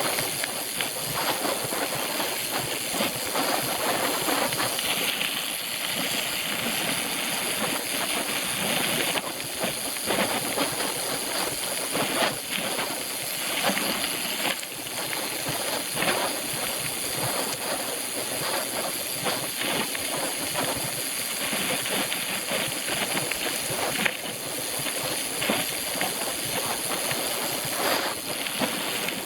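Bicycle being ridden over a rough trail: a steady rush of tyre noise and wind with frequent small rattles and knocks.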